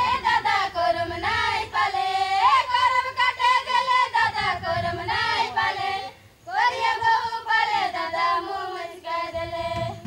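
High female voices singing a folk song, in two phrases with a short break about six seconds in.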